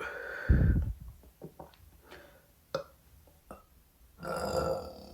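A woman burping twice. The first burp lasts about a second and has a deeper, louder stretch partway through. After a few small clicks, a second burp starts about four seconds in.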